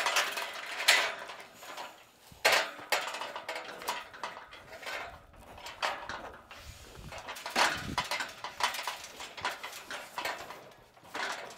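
Irregular metallic clanks and rattles of pen panels, wire and posts being bumped as livestock are pushed through a makeshift pen.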